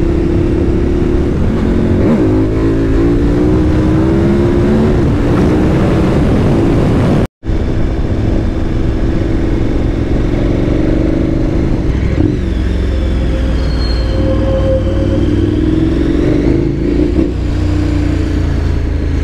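KTM 1290 Super Adventure R's V-twin engine running under way, its pitch rising and falling with the throttle, heard from the rider's camera with wind noise. The sound cuts out for a moment about seven seconds in.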